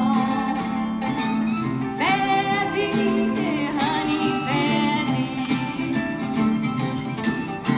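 Old-time acoustic string band playing live: strummed guitar and mandolin under a lead melody that bends and wavers in pitch, from a harmonica.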